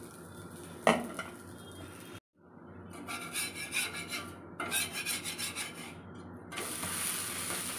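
Ladle rubbing chakuli pitha batter around on a hot iron tawa, spreading the crepe: a run of rhythmic rasping scrapes, with a sharp tap about a second in and a steady sizzle near the end.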